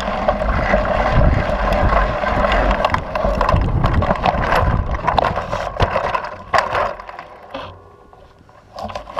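Mountain bike ridden fast over a dirt trail and a jump, heard from a camera mounted on the bike: tyre noise and the chain and frame rattling, then several hard knocks a little past halfway as the bike crashes onto its side. The sound then drops off to much quieter.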